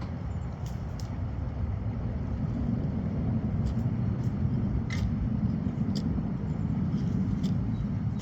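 Steady low rumble of a running motor vehicle, swelling a little toward the middle, with a few faint light clicks.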